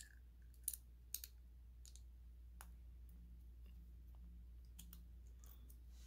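A few faint, scattered clicks of steel tweezers against small brass lock pins and the Mul-T-Lock cylinder housing as driver pins are drawn out, with near silence between them.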